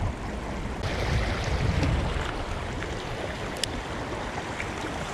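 Shallow river water running over and around rocks, with wind rumbling on the microphone, strongest from about one to two and a half seconds in. A few small clicks, the clearest about three and a half seconds in.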